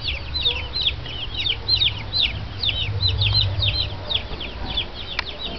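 A brood of baby chicks peeping continuously: a dense run of short, high chirps, several a second.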